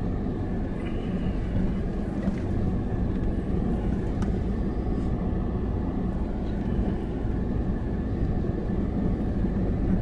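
A 4WD's engine and tyres droning steadily inside the cabin as it crawls over a rocky, nearly dry river crossing, with a few faint knocks.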